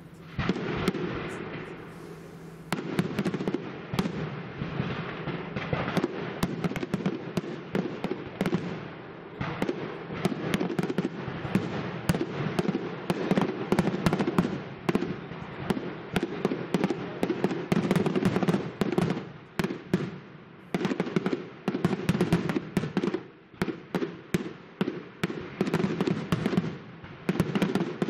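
Professional aerial firework shells bursting in rapid succession: a dense volley of bangs and crackling, with a couple of brief lulls about two-thirds of the way through.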